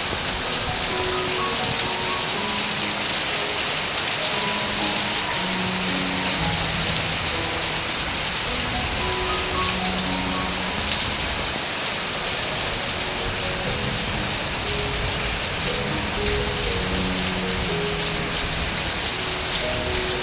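Heavy rain pouring steadily, a dense even hiss of rain falling on surfaces.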